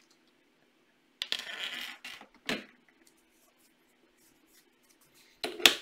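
Hardware being handled and set down on a wooden tabletop: a brief rustle about a second in, a light click, then a sharp knock near the end. A faint steady hum runs underneath.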